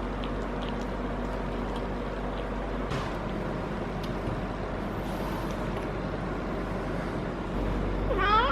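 Steady background rumble with a low hum, then near the end a short cry that rises steeply in pitch: a female cat in heat calling.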